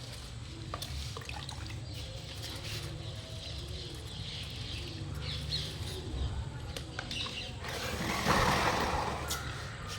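Water trickling and dripping over a steady low rumble, with a louder rush of pouring water about eight seconds in.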